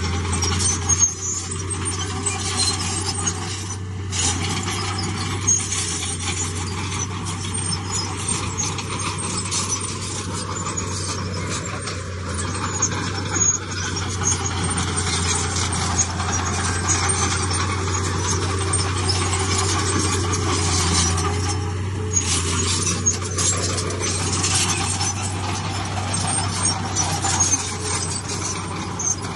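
Komatsu D31P bulldozer's diesel engine running steadily under load, with the squeal and clatter of its steel tracks and the blade working stone.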